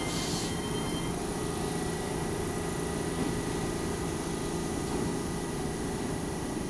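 Steady hum and hiss of a stopped Keihan 3000 series electric train standing at the platform, its onboard equipment running, with a low tone that fades out near the end.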